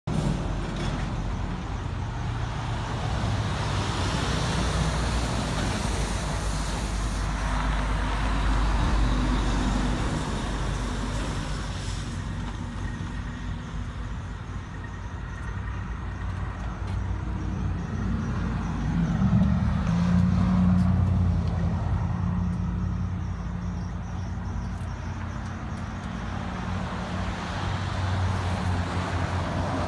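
Motor vehicle noise: a low engine hum with traffic going by, swelling and fading in waves, loudest about two-thirds of the way through.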